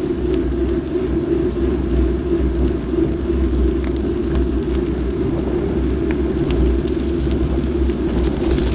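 Steady rumble of wind and road noise on a bicycle-mounted action camera's microphone while riding along a wet road at about 14 mph.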